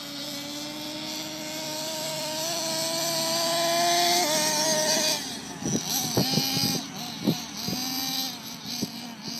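RC monster truck's motor running as it does laps on dirt and gravel. It holds a steady buzzing note that climbs slowly for the first few seconds. From about halfway the pitch jumps up and down unevenly as the throttle changes, with short crackles mixed in.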